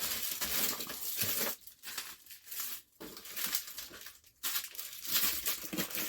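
Plastic packaging crinkling and rustling in several bursts as a small item's bag is handled and opened.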